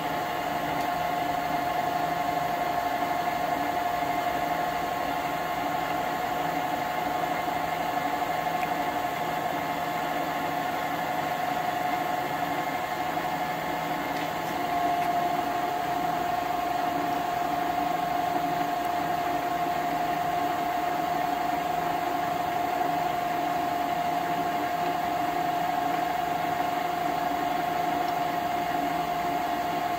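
Jet GH-1640ZX gear-head lathe running with its chuck spinning and no cut being made: a steady hum from the headstock gearing with a steady whine over it, growing slightly louder about halfway through.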